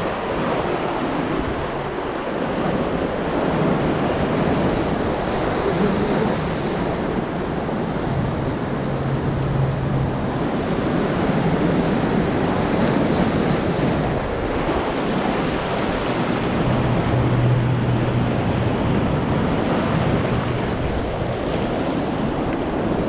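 Sea surf surging and washing over a rocky shore in a steady, continuous wash, with wind rumbling on the microphone.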